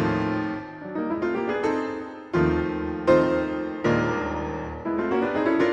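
Background piano music: chords struck about once a second, each ringing and fading before the next.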